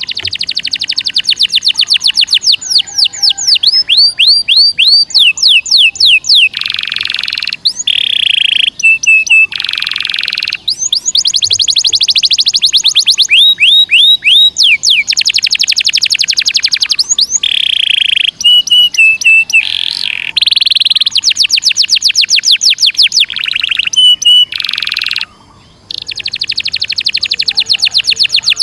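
Domestic canary singing a long, unbroken rolling song: phrase after phrase of rapid trills of repeated high notes, broken up by short buzzy notes and brief steady whistles.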